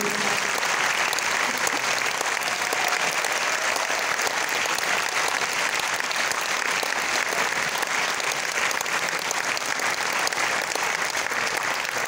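Large audience applauding: many hands clapping in a dense, even stream that holds steady throughout.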